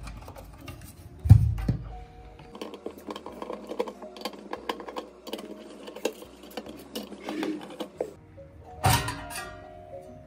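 A PC switching power supply's sheet-metal case being handled: a thump at the start and another just over a second in, a run of small clicks and rattles through the middle, and a sharp metallic knock near the end as the cover is lifted off. Soft background music runs underneath.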